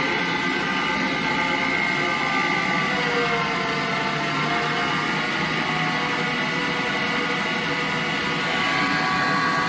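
Michelangelo electric meat grinder running at a steady whine while grinding split peas as the plunger pushes them through; its pitch dips slightly about three seconds in.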